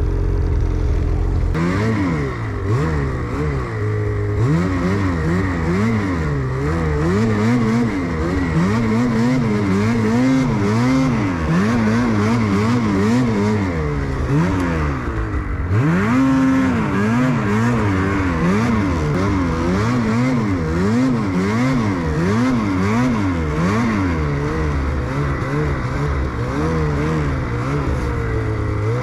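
Snowmobile engine revving up and down repeatedly while riding, its pitch rising and falling about once a second with quick throttle changes, over a steady higher whine.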